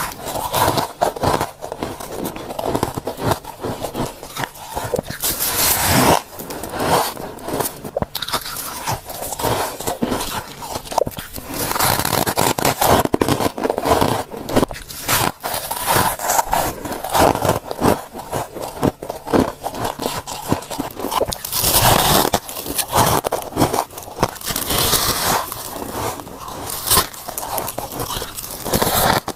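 Biting and chewing powdery freezer frost: dense, irregular crisp crunches and crackles, mouthful after mouthful.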